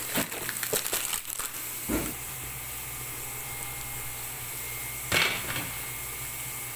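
Plastic packaging of lasagna sheets crinkling for the first second and a half, then a steady hiss with a low hum from a pot of water heating on the stove. A short loud knock comes about five seconds in.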